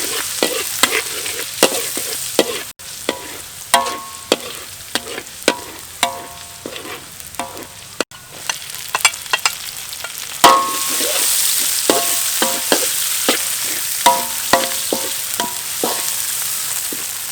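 Food sizzling in a hot metal pan as it is stir-fried, with a metal spatula repeatedly striking and scraping the pan so that it rings briefly after each stroke. The sizzle gets louder about ten seconds in.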